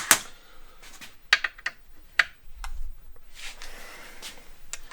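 Hand tools clicking and clinking against metal bolts while the exhaust brace is tightened: a handful of irregular sharp clicks, a quick cluster of them about a second and a half in.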